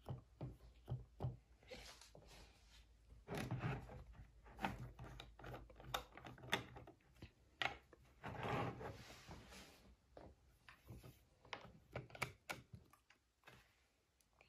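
Scattered light knocks, taps and rubbing from small things handled on a tabletop, with two longer rustles, one about three and a half seconds in and one about eight and a half seconds in.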